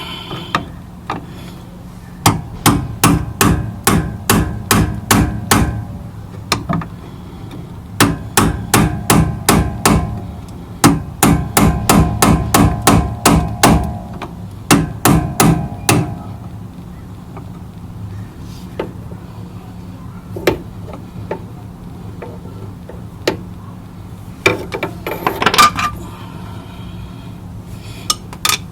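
Hammer striking metal in several runs of quick, ringing blows, about three a second, with short pauses between the runs. After that come a few scattered lighter knocks.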